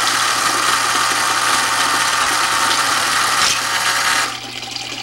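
A homemade Rube Goldberg machine running: a steady mechanical whirring rattle that cuts off suddenly about four seconds in.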